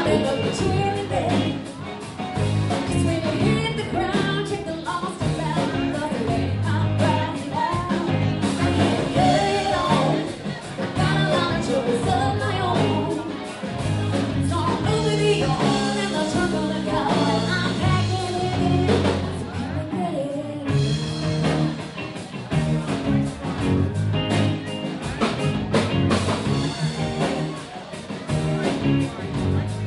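Live rock band playing: a woman singing lead over electric guitar and drums.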